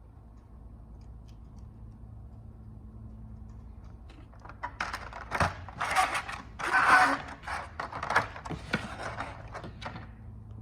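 Handling noises of a plastic action figure or its packaging: a run of clicks and scraping that starts about halfway through and is loudest near the end, over a low steady hum.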